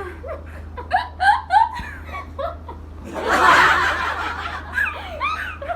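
A few young women giggling and snickering in short bursts, with a louder breathy laugh about three seconds in.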